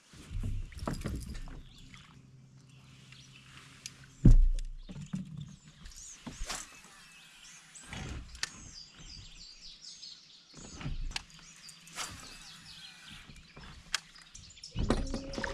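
Scattered knocks and handling noises on a fishing kayak, with one heavy thump about four seconds in, and birds chirping in the background.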